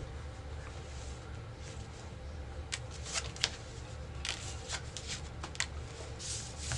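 Rook playing cards being played onto a table and gathered up: a scatter of light card snaps and slides, most of them in the second half.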